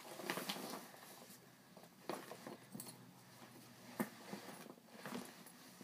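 Scattered light clicks, taps and rustles of a parcel's contents and packaging being handled, with sharper clicks about two and four seconds in.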